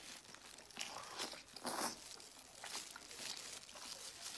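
Mouth sounds of biting and chewing braised pork belly, in irregular short bursts with the loudest just under two seconds in, mixed with the crinkle of a disposable plastic glove handling the meat.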